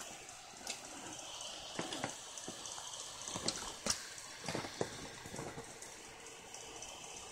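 Irregular light clicks and knocks of hardware being handled, over a steady hiss, with a cluster of sharper clicks around the middle.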